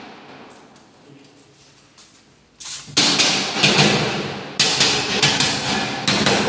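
A run of about five sharp knocks, starting about halfway through, each ringing on in a bare, empty room.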